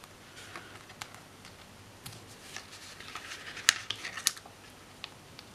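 Sticker sheets being handled at a desk: light, scattered clicks and paper rustles, the two sharpest about three and a half and four seconds in.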